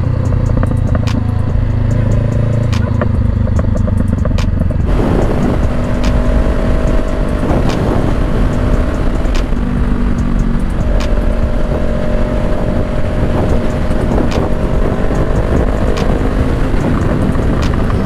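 Honda CBR500R's parallel-twin engine running as the bike accelerates along the road. About five seconds in, a heavy rush of wind noise suddenly comes in over the engine.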